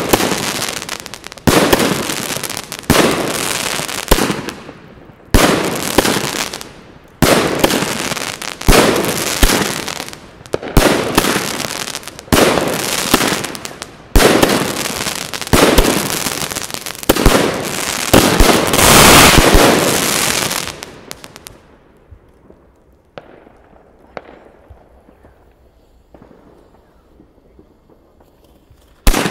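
Pangu 'Brasilian Box' 114-shot fireworks cake firing. A sharp bang comes about once a second, each one dying away, and they build to a rapid, loud volley about two-thirds of the way in. It then drops to faint pops for several seconds before one more bang right at the end.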